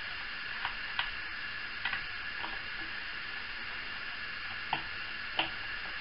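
Scattered light clicks and ticks of tiny screws and the plastic parts of a Syma X8C quadcopter being handled by fingers, about six in all, the loudest two near the end, over a steady faint hum.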